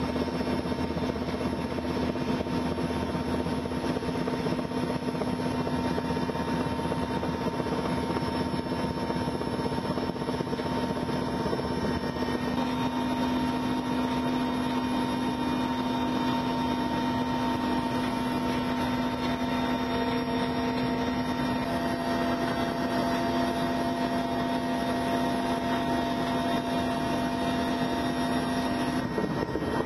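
Helicopter engine and rotor noise heard from on board: a steady drone with constant hum tones.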